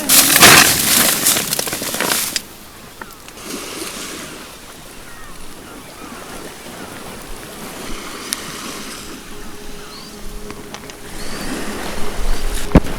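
Sea waves washing, with wind on the microphone, loudest for the first couple of seconds and then dropping to a quieter wash.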